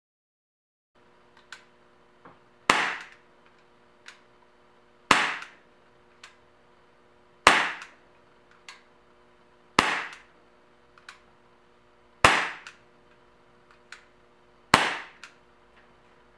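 Daisy Powerline 5501 CO2 blowback BB pistol firing six single shots, about one every two and a half seconds. Each is a sharp crack with a short ring-out, and there are fainter clicks between the shots.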